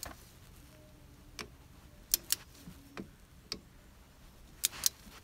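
Socket ratchet clicking as it is worked back and forth on a brake caliper bolt: sharp clicks, singly and in close pairs, about every second.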